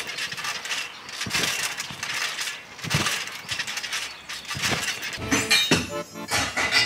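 Trampoline mat thumping as a child bounces, about one thump every second and a half, over a steady rustling noise. Near the end, dishes clink and clatter.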